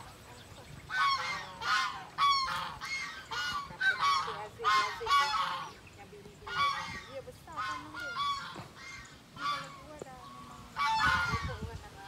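A flock of white domestic geese honking over and over, calls overlapping at times, with a brief lull near the end before they start up again.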